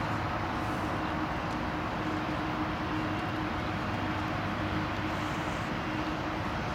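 Diesel locomotive approaching slowly, its engine running as a steady drone with a held tone.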